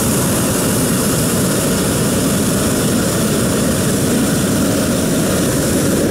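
Hot air balloon propane burner firing into the envelope during inflation, a loud, steady roar lasting several seconds that cuts off suddenly near the end.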